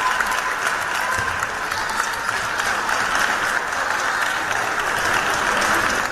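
Spectators applauding, a dense steady clapping.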